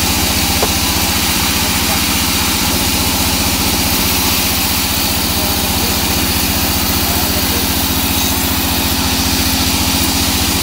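Vertical band sawmill running steadily as its blade rips lengthwise through a small teak log, over a fast, even low throb from the machine's drive.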